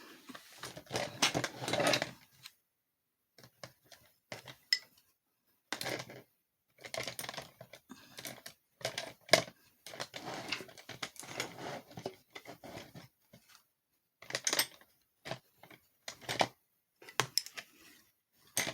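Irregular light clicks, taps and rustles of crochet hooks and yarn being handled close by, in bursts with short pauses.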